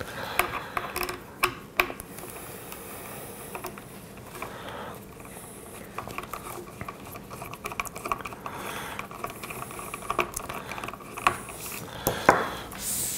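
Hands opening the cable box on a Prusa i3 MK2 3D printer: scattered small clicks, taps and scrapes, with a few sharper knocks just after the start and again near the end.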